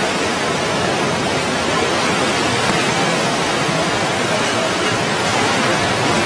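Floodwater of a river in spate rushing past in a steady, loud, unbroken rush of noise.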